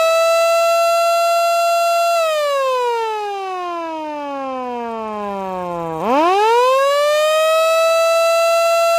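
Mini siren sounding the attack signal, a wailing rise and fall in pitch. It holds a steady high wail, winds down over about four seconds to a low growl, then winds back up within about a second to the same high wail and holds it to the end.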